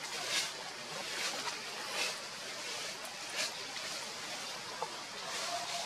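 Outdoor ambience: a steady hiss with a few short, soft rustling noises.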